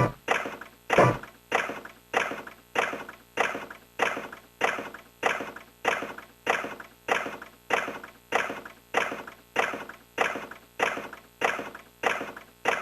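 Sankyo Fever Big Chime retro pachinko machine making a steady mechanical clack, about three strokes every two seconds, each with a short ringing tail.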